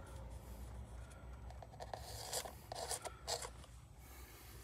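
Small objects being handled by hand: rustling and scraping, with a few short crinkles between about two and three and a half seconds in, over a low steady hum.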